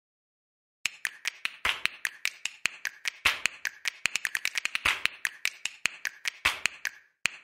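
A quick run of sharp, irregular clicks, several a second, starting about a second in.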